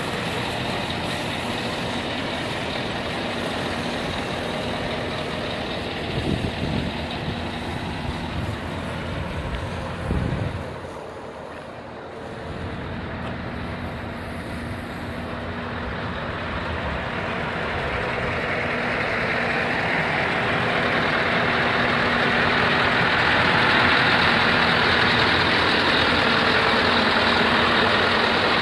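Scania R 560's 15.6-litre V8 diesel idling steadily, with an even hum. It drops back somewhat a little over a third of the way through and grows louder toward the end.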